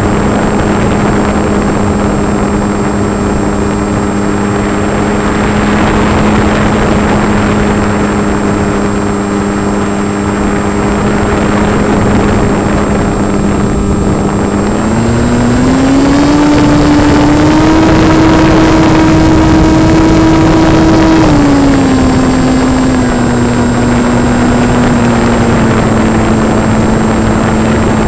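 Electric brushless motor and propeller of an RC foam plane, heard onboard, whining steadily over wind rush. About halfway through the pitch rises as the throttle is opened, holds higher for several seconds, then steps back down to the earlier cruise pitch.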